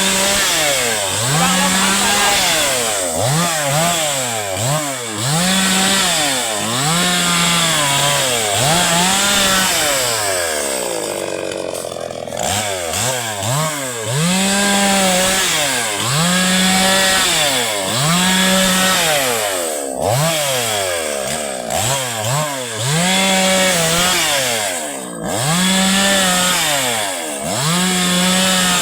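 Chainsaw's small petrol engine revving up to full speed and dropping back over and over, about every two seconds. About ten seconds in, it falls back toward idle for a little longer.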